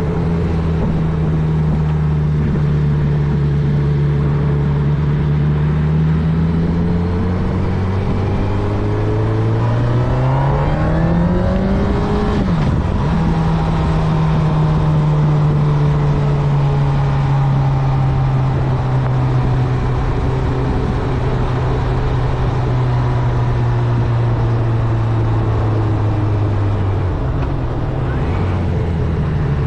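Honda CB1000R's inline-four engine pulling under throttle while riding. It rises in pitch for several seconds, drops sharply at an upshift about twelve seconds in, then holds a steady cruise that slowly eases off, with another step down near the end. Wind and road noise run underneath.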